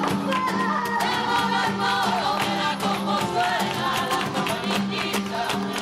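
Background music: a singing voice over a steady rhythmic accompaniment.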